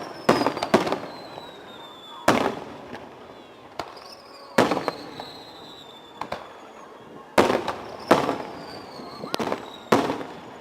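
Aerial fireworks display: about ten sharp bangs of shells bursting overhead, some in quick pairs. Between them come high whistles that slide slowly down in pitch.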